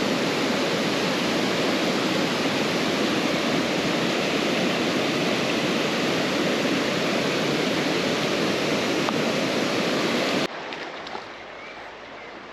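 Rushing river water, a steady, even rush that cuts off abruptly about ten seconds in, leaving a much quieter background.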